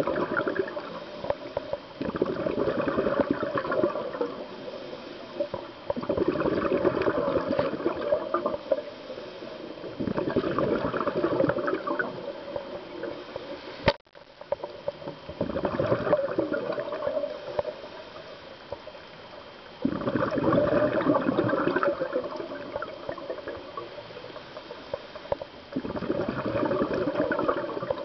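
Scuba diver's regulator exhaust heard underwater: bursts of bubbling, each about two seconds long, about every four to five seconds, with quieter breaths between. A single sharp click about halfway through.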